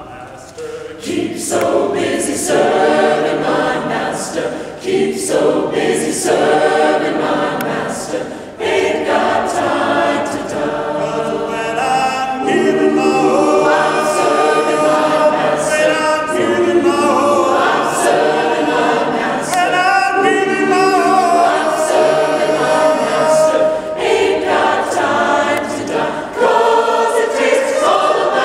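Mixed choir of women and men singing a gospel spiritual in full voice, phrase after phrase with short breaks between; it comes in quietly and swells about a second in.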